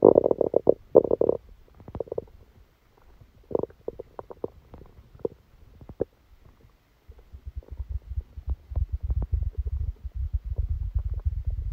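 A person's stomach gurgling and growling during a stomachache after a meal: a cluster of bubbly gurgles and pops in the first second and a half, scattered gurgles after, then a deep, low rumble from about seven seconds in.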